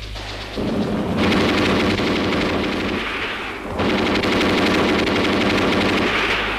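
Sustained machine-gun fire in two long bursts, the first starting about half a second in and the second just under four seconds in, over a steady low rumble.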